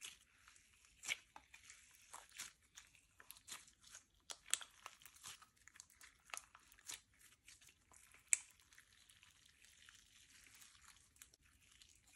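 Hands stretching and squishing slime, with frequent sharp crackling pops over a soft sticky hiss; one pop about eight seconds in is louder than the rest.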